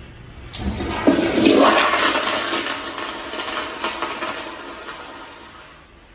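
Commercial restroom fixture flushing: a sudden rush of water starts about half a second in, is loudest over the next couple of seconds, then slowly tapers off.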